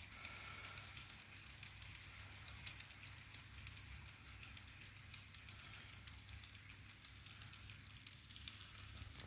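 Faint, continuous clicking and rattling of OO-gauge model goods wagons rolling along the track and over rail joints, over a low steady hum.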